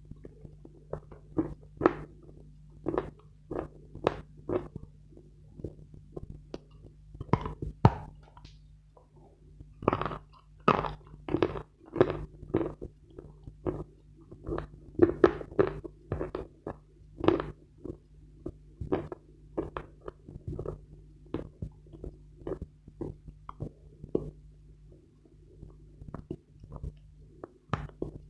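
Dense dry Khrapovsky chalk being bitten and chewed: a string of sharp, irregular crunches, about one or two a second, coming thickest in the middle.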